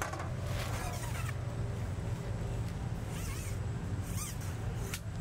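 Water hyacinth leaves and stems rustling and rubbing as a hand works among them, in short scratchy bouts about a second in and again after three seconds, over a steady low rumble.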